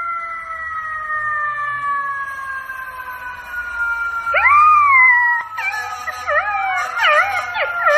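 Golden retriever puppy howling: a rising then falling call about four seconds in, then a wavering, up-and-down howl. Before it, a long wailing tone slowly falls in pitch, which the puppy's howl joins.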